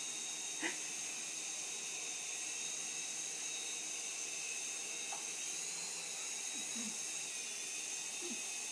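Toy helicopter's small electric motor whining steadily, a thin high hum over hiss whose pitch wavers slightly partway through. A few faint short sounds come over it.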